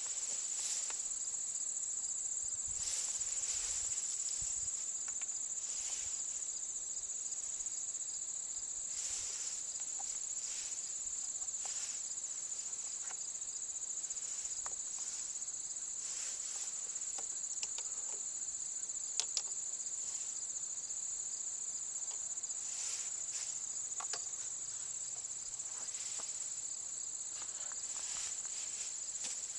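Steady high-pitched chorus of crickets, with a few faint scattered ticks and taps.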